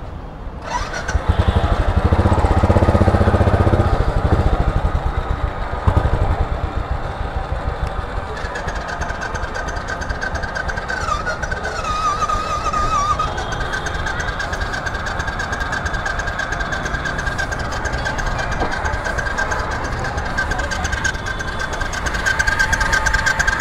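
Royal Enfield Classic 500's single-cylinder engine starting about a second in, revving loudly for a few seconds, then running steadily at a lower level.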